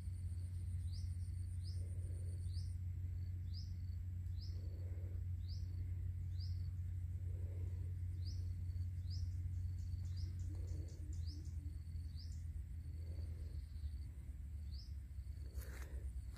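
A bird repeating a short, high chirp about once or twice a second, with softer lower calls every second or two, over a steady low rumble. Near the end, a few sharp crunching steps.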